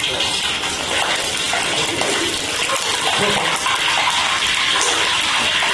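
Fish deep-frying in hot oil in a wok, a loud, steady sizzle just after the fish have gone into the oil.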